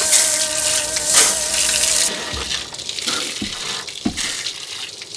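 Water hose spraying a hard jet of water, a loud hiss with a wavering tone under it that stops about two seconds in, leaving only quieter sounds.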